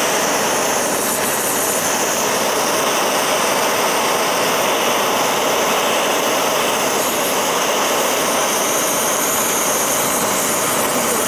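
Propane torch flame burning steadily: a constant rushing hiss with no breaks, played on lead pellets that are melting.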